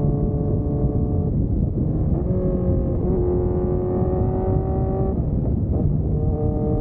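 Honda CB1300 inline-four engine running at road speed under heavy wind rumble, the whole sound muffled with no highs. The engine note drops in pitch about two seconds in and rises again near the end.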